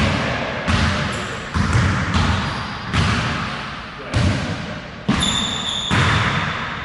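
Basketballs bouncing on a hardwood gym floor: about six sharp thuds roughly a second apart, each ringing out in the echo of a large hall. A short high squeak comes about five seconds in.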